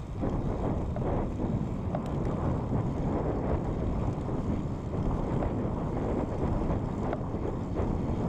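Wind buffeting the microphone of a camera on a road bike riding fast, a steady low rushing, mixed with the rolling noise of the tyres on asphalt.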